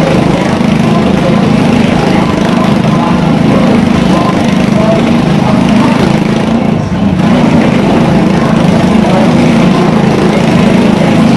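Motorcycle engine running hard and steadily as a rider circles the wooden wall of a wall-of-death drum, with a brief dip about seven seconds in.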